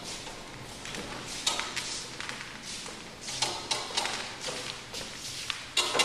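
Grand piano being pushed across a wooden stage floor on its casters: rolling and scraping noise in swells, with a few sharp knocks.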